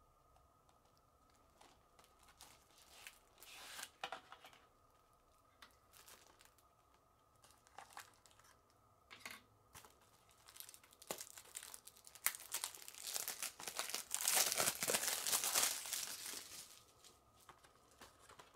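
Packaging of a 4K Blu-ray combo pack being handled and unwrapped: scattered crackles, then a few seconds of dense crinkling and tearing near the end.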